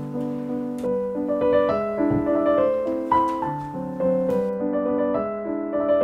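Background piano music: a slow melody of held notes over a steady accompaniment.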